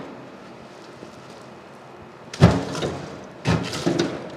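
Wood stove's cast-iron door being opened and a split log loaded into the firebox: a loud metallic clank about halfway through, then two more knocks shortly after.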